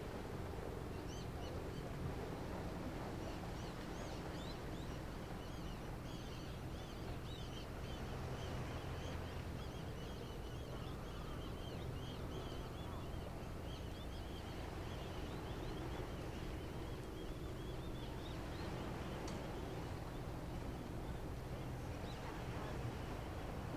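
Steady low drone of a large ship's engines, with many short, high bird chirps over it, thickest in the middle.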